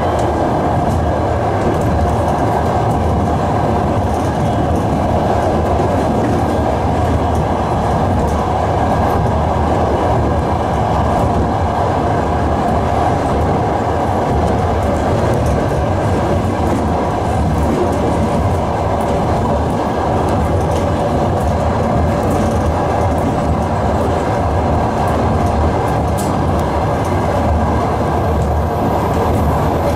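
ED9E electric multiple unit running at speed, heard from inside a passenger car: a steady rumble of wheels on rails with an even hum.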